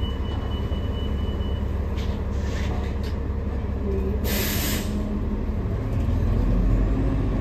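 Interior of a New Flyer XDE60 diesel-electric hybrid articulated bus: a steady low drivetrain hum at a stop, with a thin high beep in the first two seconds. About four seconds in comes a short hiss of released compressed air, and near the end the drive grows louder as the bus pulls away.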